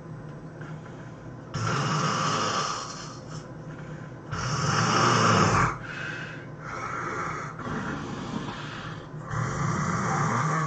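A person snoring heavily in sleep: three loud snores, the loudest about halfway through, with softer snores between them.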